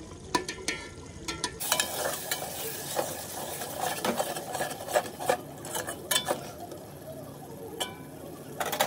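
A metal spoon stirring boiled eggs in masala in an aluminium pot, clicking and scraping against the pot's side at an irregular pace, over a faint sizzle of the masala cooking.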